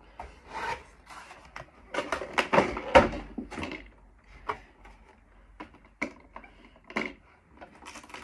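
Clear plastic packaging insert being pulled out and handled: crackling and scraping with many sharp clicks, loudest about two to three and a half seconds in, then scattered clicks.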